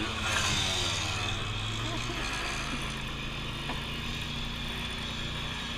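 Polaris Sportsman ATV engine coming off the throttle about a second in, then idling steadily.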